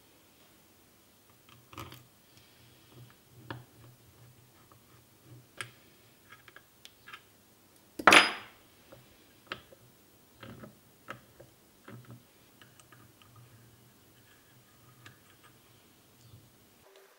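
Scattered small clicks and clinks of metal parts and hand tools being handled on a padded bench while a lathe apron is assembled, with one loud sharp knock about eight seconds in.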